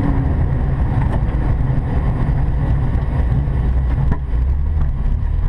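Rally car's engine heard from inside the cabin, running low and steady as the car creeps forward at slow speed, with a single sharp click about four seconds in.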